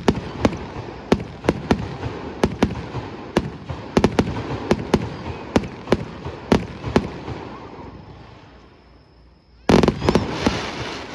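Fireworks display: a quick string of sharp aerial shell bangs, about two to three a second, that thins and fades away. A loud cluster of bangs comes close together near the end.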